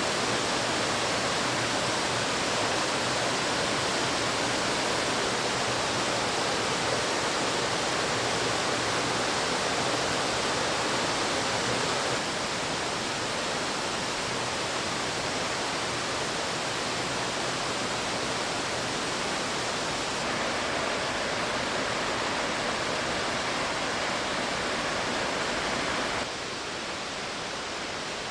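Waterfall: a steady rush of falling water, with no rhythm or distinct events. Its level steps down abruptly twice, most clearly a couple of seconds before the end.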